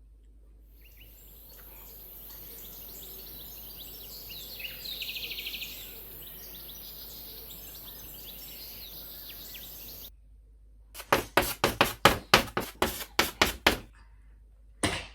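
Background ambience with high chirps, like birds, and a fast chirping trill about five seconds in. Near the end come about a dozen loud, sharp knocks in quick, uneven succession.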